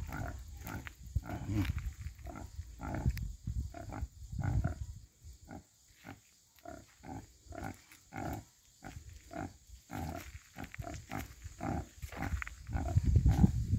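Sow grunting in a steady run of short, low grunts, about two a second, while her newborn piglets suckle: the rhythmic nursing grunts that go with the milk let-down.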